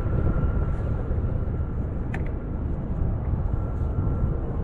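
Wind buffeting an action camera's microphone, a steady low rumble, with a faint steady whine that fades out near the end. A brief sharp double click about two seconds in.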